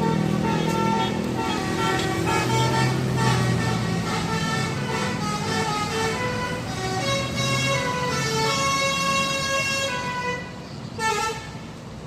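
Bus 'basuri' telolet musical air horn playing a melody of held notes that step up and down in pitch, with a short louder blast near the end.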